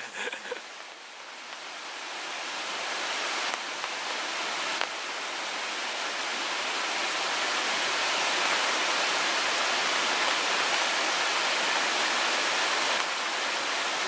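Rushing water of a river swollen by typhoon rain, pouring over rapids in a steady noise that grows louder over the first several seconds and then holds.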